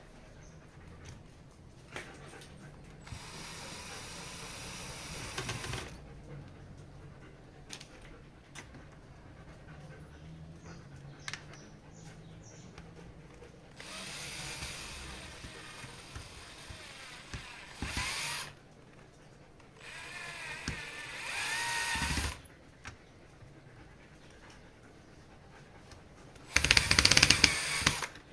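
Electric drill-driver running screws in, in four short runs with small clicks and handling knocks between; the last run, near the end, is the loudest.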